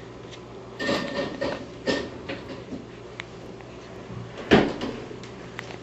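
A baby hiccuping: short, sudden hics, about a second in, again about two seconds in, and the loudest about four and a half seconds in.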